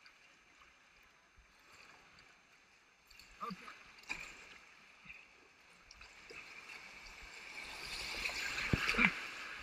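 Creek water rushing around an inflatable kayak, with a couple of sharp paddle splashes a few seconds in. The rush of whitewater grows steadily louder over the last few seconds as the boat enters a riffle.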